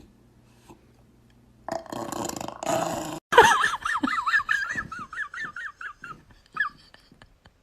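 A dog vocalising: a rough grumble, then a long high whine that wavers up and down several times a second before it stops.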